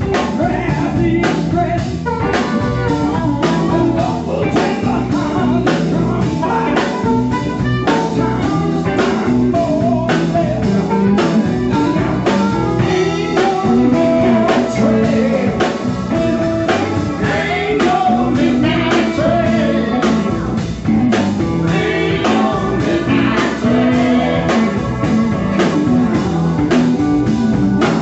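Live blues band playing: a male voice singing over electric guitar, keyboard and a drum kit keeping a steady beat, with a harmonica played into a microphone.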